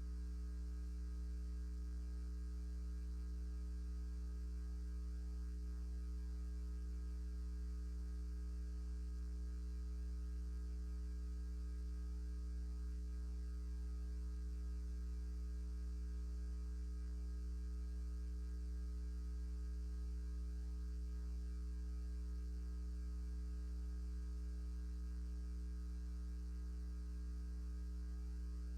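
Steady low electrical mains hum, with fainter higher buzzing overtones and no other sound.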